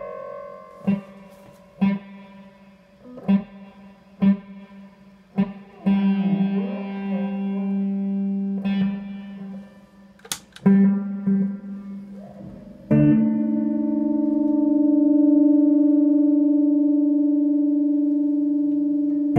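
Electric guitar, a custom Stratocaster, played through effects pedals: single picked notes about once a second, then a note left to sustain. About two thirds of the way in, a new, higher note is struck and held, ringing on steadily.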